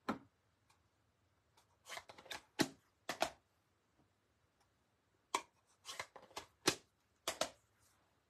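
Plastic ink pad cases being closed and set down, with clear acrylic stamp blocks clacking on the desk: an irregular string of short clicks and knocks.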